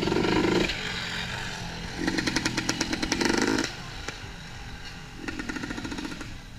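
A small two-stroke scooter engine revved in three bursts of rapid pulsing, the middle one the longest.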